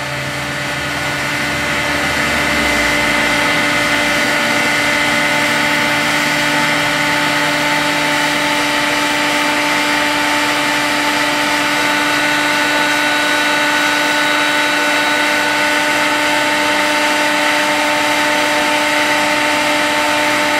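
Heat gun running on its high setting: a steady blowing rush with a constant whine, getting a little louder over the first few seconds and then holding even.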